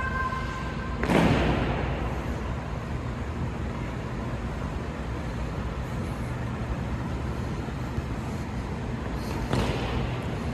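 Steady low background rumble in a large echoing arena, broken by a loud sharp sound about a second in and a second one near the end, each ringing away briefly in the hall.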